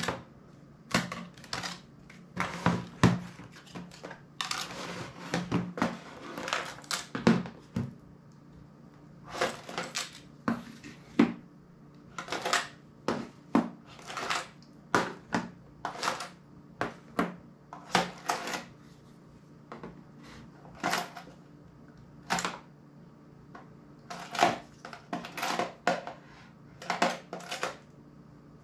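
Old mobile phones pulled from a plastic caddy and set down one after another on a hard tabletop: a string of irregular clacks and knocks of plastic and glass.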